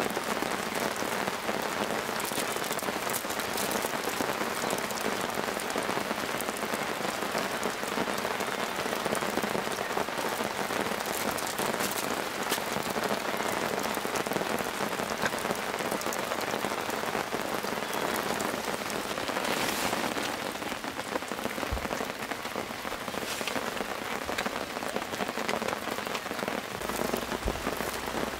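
Steady rain pattering, an even hiss of many small drops with scattered individual ticks.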